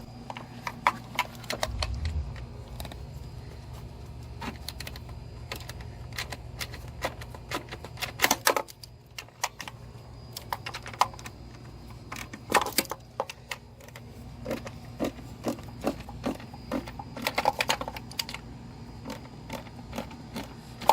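Irregular light clicks and taps of hand tools and metal or plastic engine parts being handled, one knock at a time with uneven gaps, over a faint steady low hum.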